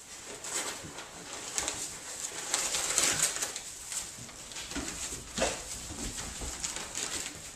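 A litter of puppies play-fighting in shredded-paper bedding: irregular rustling of the paper with the puppies' small vocal noises, and one sharper cry about five and a half seconds in.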